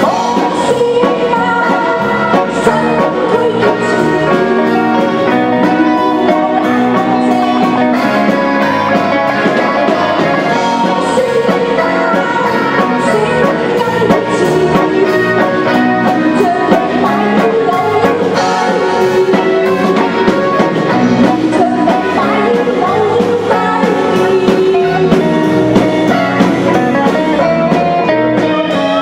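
Live stage band music with electric guitar and drum kit, playing continuously.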